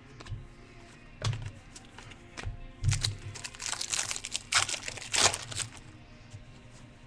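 Baseball trading cards being handled and flipped through by hand: short, sharp rustles and scrapes of cards sliding against one another, a few about a second in and a busier cluster around the middle.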